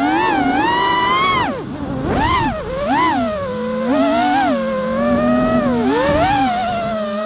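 FPV racing quadcopter's brushless motors (RMRC 2204 2600kv) spinning 5-inch tri-blade props, heard from the onboard camera: a buzzing whine that swoops up and down in pitch with the throttle, dropping sharply about a second and a half in and then surging back up several times.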